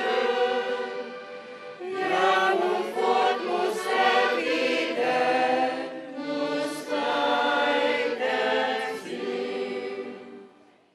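A choir singing together in several phrases, fading out near the end.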